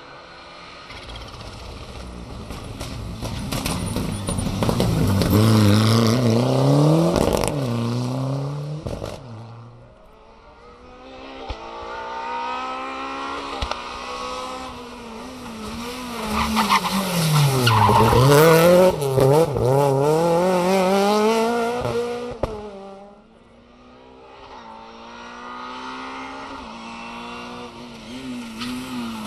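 Three rally cars pass one after another on a tarmac stage, a red-and-white Ford Escort and then two Renault Clios, each engine revving hard with its pitch rising and dropping through quick gear changes as it approaches and goes by. The sound breaks off twice between cars.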